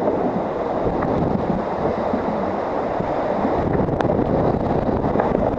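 Wind buffeting the microphone over the steady rush of breaking waves and spray as an ocean racing yacht sails fast through big seas.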